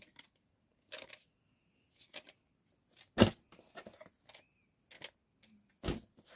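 Scattered clicks, taps and knocks of objects being handled, with the loudest thump about three seconds in and another near the end.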